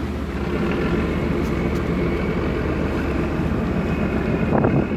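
Tugboat's diesel engine running with a deep, steady throb, with propeller wash churning the water alongside. It swells briefly louder near the end.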